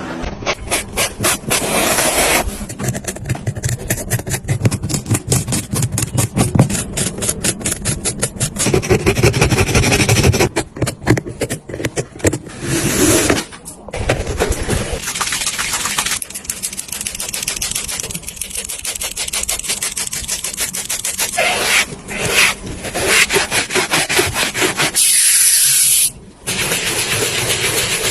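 Rapid, repeated rubbing and scraping strokes, several a second, changing abruptly every few seconds.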